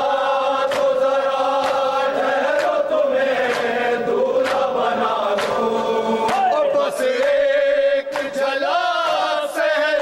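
Men chanting a noha lament in unison without instruments, voices holding long wavering notes. Sharp beats fall about once a second, in time with the recitation; these are typical of hands struck on the chest in matam.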